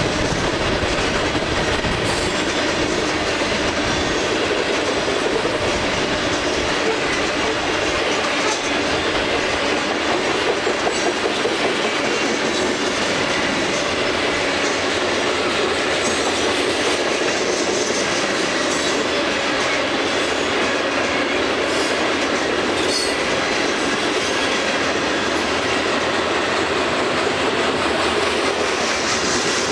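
Freight train of covered hopper cars rolling past: a steady rumble and clatter of steel wheels on rail, with brief high wheel squeals now and then.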